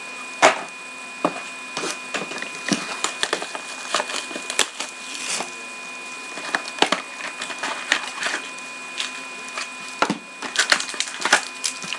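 Crinkling, crackling and tapping of packaging as a sealed box of trading cards is unwrapped and opened by hand, in irregular short crackles and clicks.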